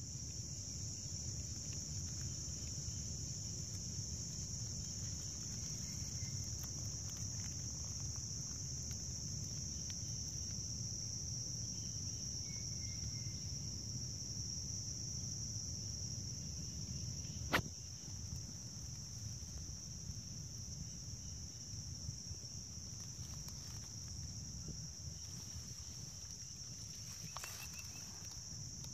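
A chorus of insects giving one steady, shrill, unbroken drone over a low rumble of background noise. A single sharp click cuts in once, a little past halfway.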